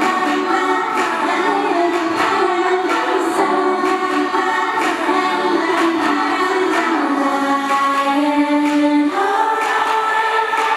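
K-pop girl group singing in unison into handheld microphones over a pop backing track with a steady beat. The voices hold long notes in the last few seconds, moving to a higher held chord about nine seconds in.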